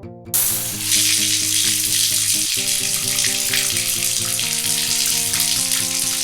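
A loud, steady hiss that starts suddenly just after the beginning, over background music with a steady melodic line.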